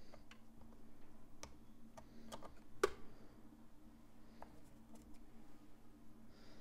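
Small sharp clicks and taps of a metal hooked depotting tool against eyeshadow pans as a pan is pried out of the palette, with the loudest click about three seconds in. A low steady hum runs underneath.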